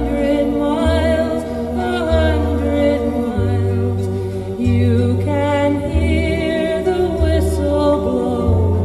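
Music with singing voices over a deep bass line that changes note about once a second, played through a car audio system and heard inside the car's cabin.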